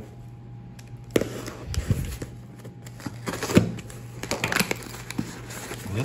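Pocketknife cutting the packing tape on a cardboard shipping box and hands working the box open: a string of sharp cardboard snaps, clicks and scrapes, the loudest snap about three and a half seconds in.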